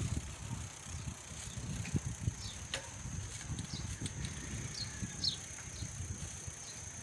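Wind rumbling on the microphone during an outdoor ride, with a steady high-pitched whine and a few short high chirps and clicks over it.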